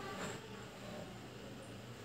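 Faint sizzle of green chillies, curry leaves and fennel seeds frying in sesame oil in a kadai, over a steady low hum.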